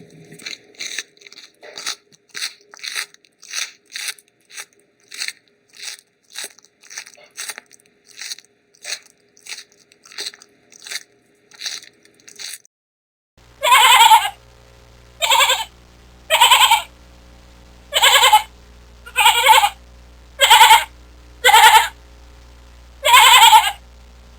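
A run of short, sharp clicks, about two a second, followed after a brief pause by eight loud bleats, each lasting about half a second to a second.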